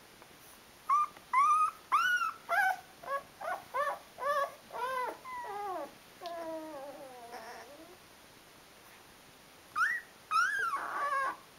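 Twelve-day-old Rhodesian Ridgeback puppy whimpering: a quick run of short, high squeaks that rise and fall, trailing off into a longer falling whine, then a few more squeaks near the end.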